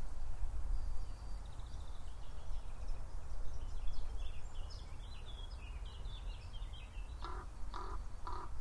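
Small songbirds twittering, then three harsh calls of a common raven in quick succession near the end, over a steady low rumble.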